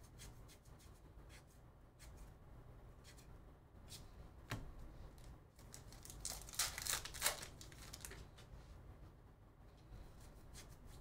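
Faint flicks of trading cards being thumbed through by hand, then a baseball card pack wrapper tearing and crinkling for about a second and a half, about six seconds in.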